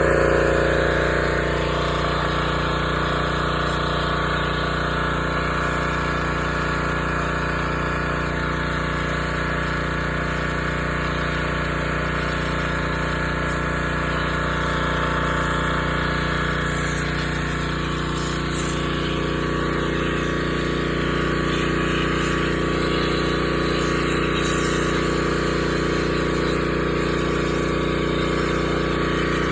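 Pressure washer running steadily, its motor and pump giving a constant drone with no letup.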